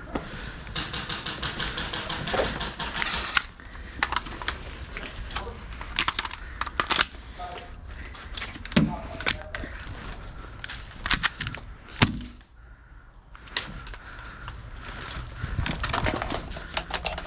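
Airsoft guns firing: a rapid string of sharp clacking shots in the first few seconds, then scattered single shots and short bursts, with a brief lull a little past the middle.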